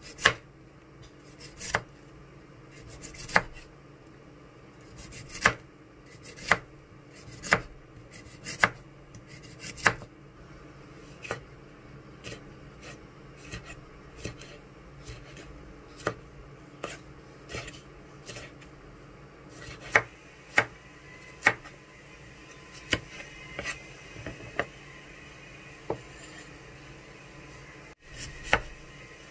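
Chef's knife slicing red onion and red bell pepper, each stroke striking a bamboo cutting board in a sharp knock, roughly once a second at an uneven pace.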